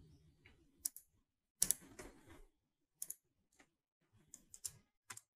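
Scattered clicking of a computer mouse, about eight to ten separate short clicks spread over a few seconds, the loudest pair about one and a half seconds in.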